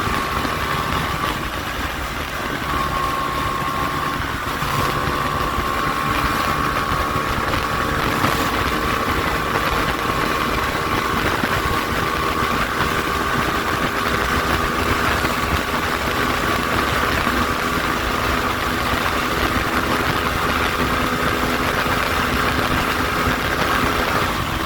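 Hyosung (Kasinski) Comet GT250 V-twin motorcycle engine running steadily, with wind rumbling on the microphone.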